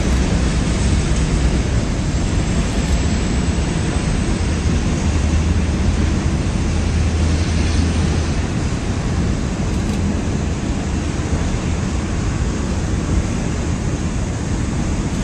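Freight cars of a manifest train rolling steadily across a steel deck girder bridge, wheels on rail making a continuous low rumble.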